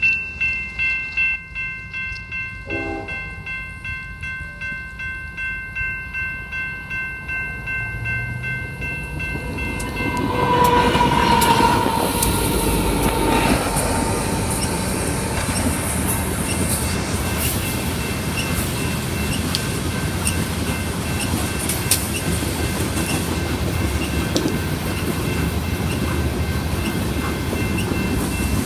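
Freight locomotive air horn sounding a long held chord as a loaded coal train approaches, then about ten seconds in the locomotives pass with a sudden louder rush. The steady rumble and clickety-clack of loaded coal cars rolling by follows.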